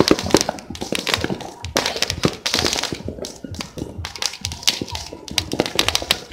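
Firecrackers and fireworks going off all over, a dense, irregular string of overlapping pops and bangs, some sharp and loud, others fainter.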